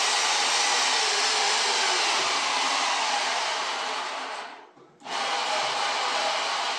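A steady, even rushing noise like a fan or blower runs loudly. It fades out about four and a half seconds in, then comes back abruptly half a second later.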